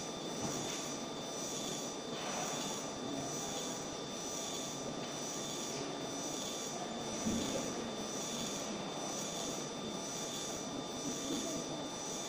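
Raycus 20 W fiber laser marking machine engraving a photo: a steady hiss with several high, steady tones and a faint regular pulse about every two-thirds of a second.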